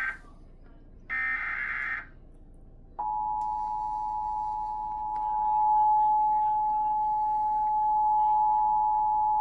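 Emergency Alert System broadcast: the last of three short digital header bursts about a second in, then, about three seconds in, the steady two-tone EAS attention signal starts and holds. It is the alert tone that heralds a severe thunderstorm warning.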